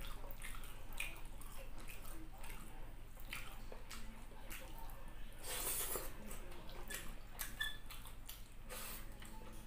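Close-miked sounds of eating fried tilapia and fried rice by hand: soft wet chewing, lip smacks and fingers picking at the fish, as a run of short clicks with a longer, louder noisy stretch a little past halfway.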